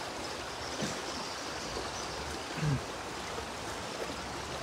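Steady rush of fast-flowing river water. A brief, faint voice-like sound comes about two and a half seconds in.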